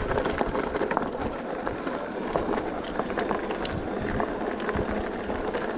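E-bike rolling along a rough path: a steady rush of tyre and wind noise with many small clicks and rattles.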